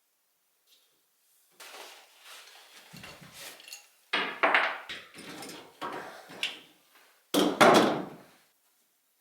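A run of knocks, bumps and scraping handling sounds, irregular, with the loudest thumps about four seconds in and again near the end.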